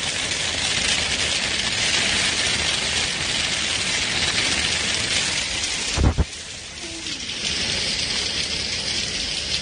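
Hail and rain pelting down in a dense, steady hiss, with a dull thump about six seconds in.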